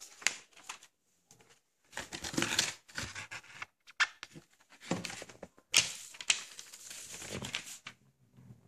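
Plastic shrink-wrap being torn and peeled off a Blu-ray steelbook case: irregular crinkling and tearing with sharp clicks.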